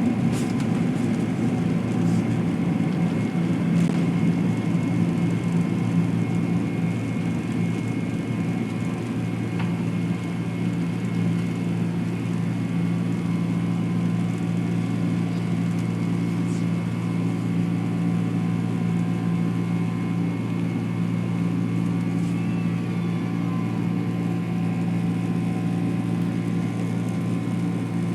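Boeing 767 jet engines heard from inside the passenger cabin: a steady, loud drone with a deep hum, a little rougher for the first few seconds and then even.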